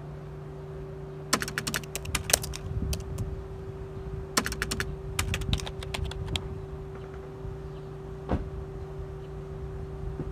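Keyboard-typing sound effect: quick clicks in two runs, the first about a second long and the second about two seconds long, with one more click later. A steady low hum lasts throughout.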